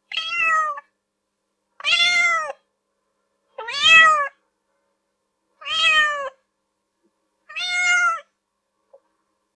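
Domestic cat meowing five times, about every two seconds. Each meow lasts under a second and rises then falls in pitch.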